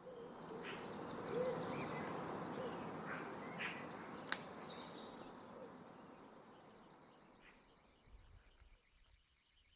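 Faint outdoor ambience with a few short bird chirps and one sharp click about four seconds in, fading away to near silence.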